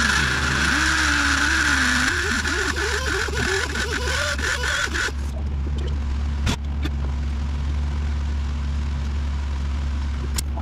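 Die grinder with a carbide burr cutting metal: a steady high whine with a wavering lower pitch under it as the bit keeps catching an edge, cutting off about five seconds in. A steady low hum continues, with a single sharp click a little later.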